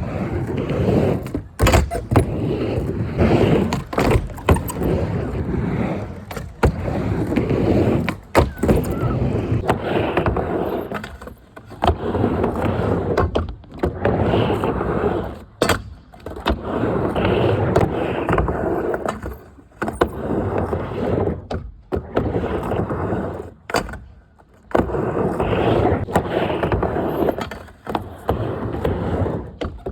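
Small engine being run in after a repair, heard with heavy rushing noise in irregular surges of a second or two, broken by short drops and sharp knocks.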